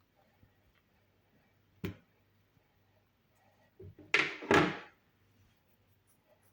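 Kitchen handling noises while a nectarine is being cut and the fruit moved. A sharp knock comes about two seconds in, then a soft thud and two louder scraping clatters around four seconds in.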